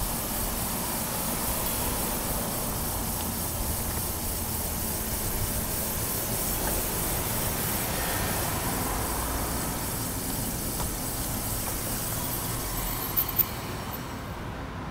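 Harley-Davidson XR1200's air-cooled V-twin running at low speed as the motorcycle rolls slowly, a steady engine and ride noise. Two sharp clicks come about thirteen seconds in, and the sound drops away soon after.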